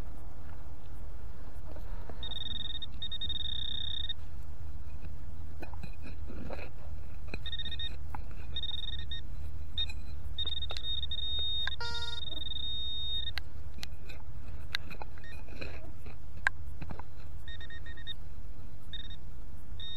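Garrett ACE 200i metal detector giving high-pitched electronic beeps from its speaker, some brief and some held for a second or two, as the coil passes over targets. A steady low rumble runs underneath, with one sharp click late on.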